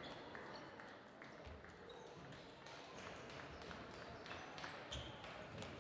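Faint, irregular clicks of table tennis balls striking bats and tables, over a low background hum of the hall.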